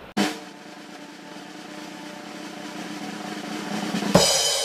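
Outro music: a drum hit, then held notes swelling slowly louder, and a second hit with bright ringing near the end.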